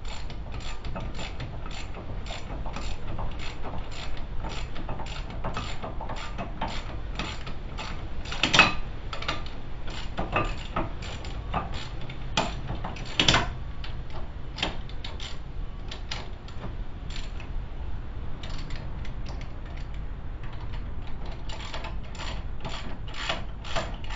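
Hand ratchet wrench clicking steadily, about two clicks a second, as bolts on the front hub and brake assembly are run in, with a couple of louder metal knocks about a third and halfway through.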